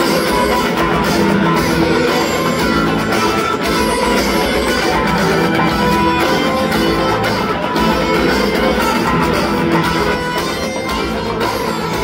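Live rock band playing an instrumental passage: strummed guitars over a drum kit and bass.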